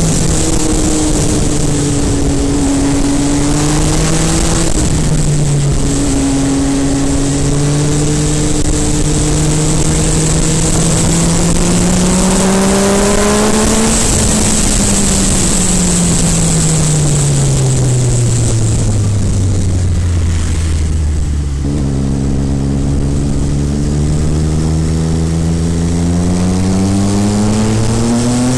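MV Agusta Brutale 800RR's three-cylinder engine under way, its revs rising and falling with the gears. There is a shift about five seconds in, then a long climb in revs, then a long fall as it slows. The revs step once more and climb again over the last few seconds.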